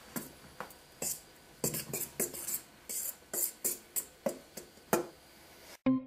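Fork scraping and clinking against a stainless steel bowl while stirring dry seasoned flour, in short irregular strokes. Near the end the stirring stops abruptly and electronic music starts.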